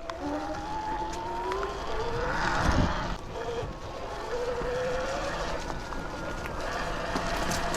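Electric dirt bike motor whining under throttle, its pitch rising as the bike speeds up and then holding steadier, with tyre and trail noise beneath. A short rush of noise with a low thump comes about two and a half seconds in.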